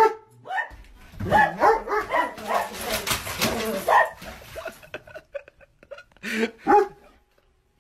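A large dog barking excitedly in a quick run of barks and yelps, then two sharp barks near the end.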